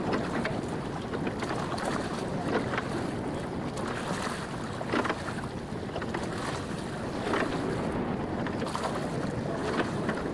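Wind buffeting the microphone and water splashing along the hull of an open wooden yole under way at sea, with irregular louder splashes every second or two.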